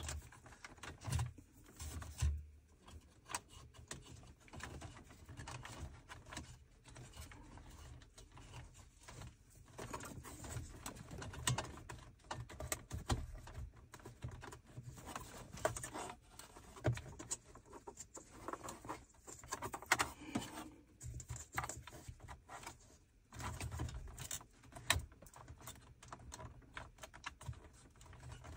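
Irregular light clicks, taps and rustles of hands working a charging cable through the insulation-lined tunnel under a car's centre console and pressing on the plastic console trim.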